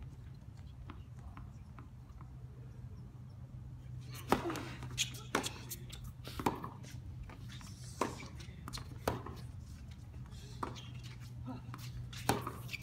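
Tennis ball struck back and forth in a rally: sharp racket pops and bounces about once a second, starting about four seconds in, over a quiet murmur from the crowd.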